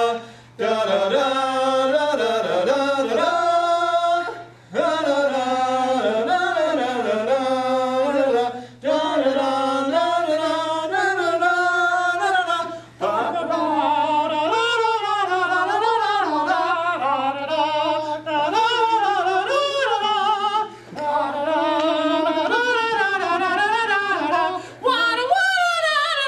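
A small group of mixed male and female voices singing a cappella in phrases of a few seconds, with short breaks for breath between them.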